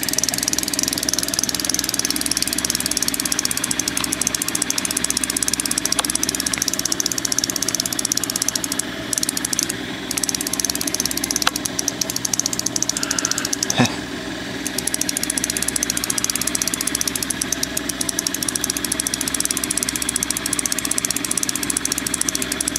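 Boat's outboard motor idling steadily with an even, rapid pulse. A few faint ticks and one sharp knock about fourteen seconds in.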